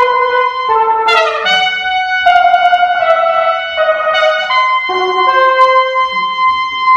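Flugelhorn and trumpet playing a slow duet, the two lines holding long notes, often an octave apart, that change every second or so.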